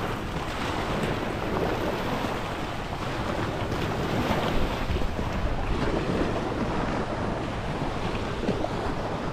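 Small waves washing at the shore, a steady wash of water, with wind rumbling on the microphone.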